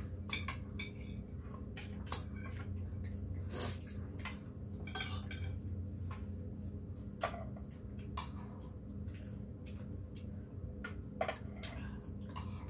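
Metal spoons and chopsticks clinking against bowls and plates at irregular intervals, over a steady low hum.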